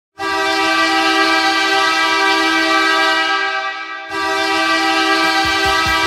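Bakersfield Condors' hockey goal horn blowing a chord of several tones at once: one long blast of about three seconds, then a second long blast starting about four seconds in. A goal song's drum beat comes in under the horn near the end.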